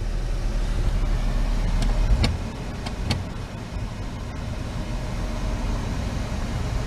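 2005 Dodge Grand Caravan's V6 idling, heard from inside the cabin as a steady low hum. A few sharp clicks come about two to three seconds in.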